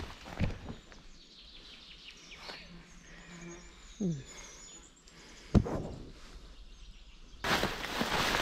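Quiet woodland with faint bird calls and a few short knocks and rustles. About seven and a half seconds in, a loud, steady rushing hiss starts abruptly.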